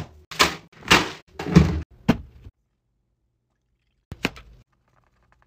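Kitchen handling noises from containers on a counter: three loud knocking thuds in quick succession and a smaller one, then a pause and a single sharp click about four seconds in.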